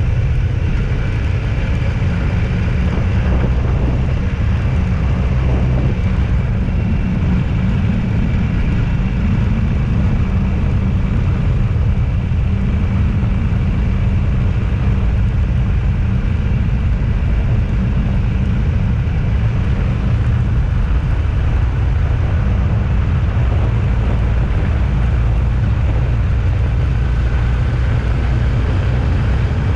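Car being driven at steady speed: a constant low engine and road rumble.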